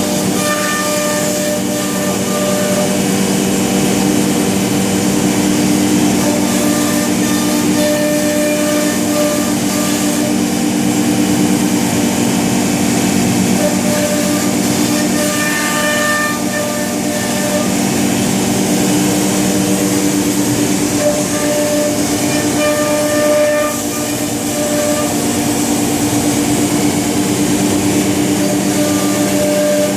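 Weeke CNC router running as it cuts panels: a steady loud hum and hiss, with a higher whine that comes and goes every few seconds.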